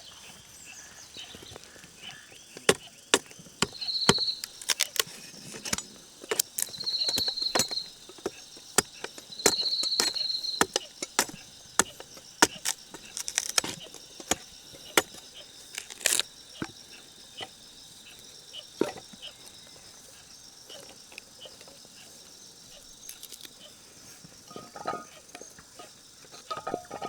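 An insect trilling in three short high-pitched bursts over many scattered sharp clicks and knocks, which thin out after the middle.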